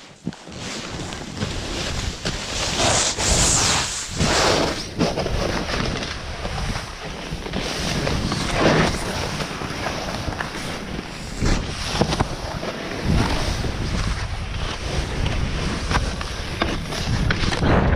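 Snowboard riding through deep powder snow: a continuous rushing hiss of board on snow that swells with each turn, mixed with wind buffeting the microphone.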